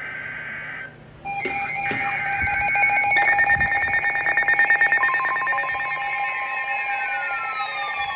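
Emergency Alert System tones ahead of a NOAA Weather Radio high wind warning. A one-second burst of SAME header data comes first, then several electronic alert tones sound together, pulsing rapidly at first, with falling glides later. A steady attention tone joins about five seconds in.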